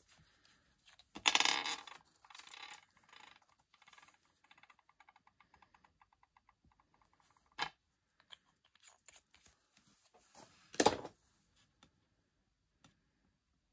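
Hands handling paper and small craft tools on a cutting mat: a short rustle, then a run of fast small clicks lasting a few seconds, and a few taps, the loudest near the end.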